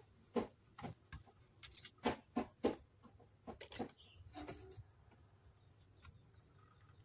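Tweezers and small metal hand tools clicking, tapping and scraping against a fibreglass circuit board while the charred, burnt-through patch is picked clean: a quick irregular run of sharp ticks in the first four seconds, a few softer scrapes, then only a faint low hum.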